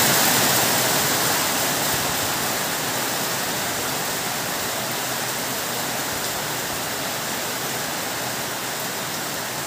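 Heavy rain falling steadily, a dense even hiss that eases a little over the seconds.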